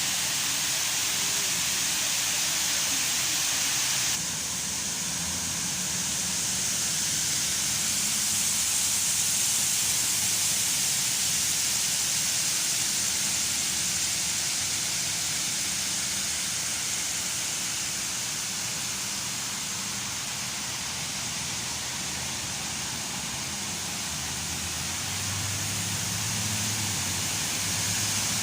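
Artificial waterfall's water rushing in a steady, even hiss. It drops slightly in level about four seconds in, and a low hum comes in underneath near the end.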